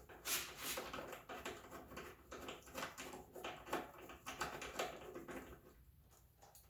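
Socket ratchet clicking in quick, uneven runs as a hood hinge bolt is undone, the clicks thinning out about five and a half seconds in.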